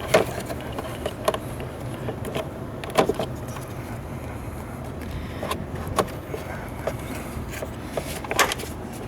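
Scattered clicks and knocks of hands working in a car's engine bay as the battery cables are tucked into place, over a steady low hum.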